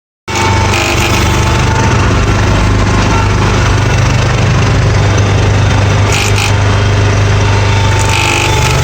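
John Deere 300 hydrostatic garden tractor running at full throttle with a grinding noise from the driveline, the fault the owner puts down to the driveshaft; it shows up when the hydro lever is pushed forward. The sound is steady from the start, with brief harsher rasps about six and eight seconds in.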